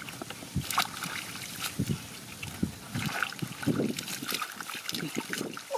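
Hands squelching and splashing in shallow muddy water while groping for fish, with scattered small splashes and clicks and a few low squelches.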